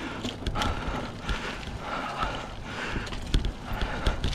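GT Aggressor Pro hardtail mountain bike ridden slowly over a rough dirt trail, giving irregular knocks and rattles from the bike and its tyres.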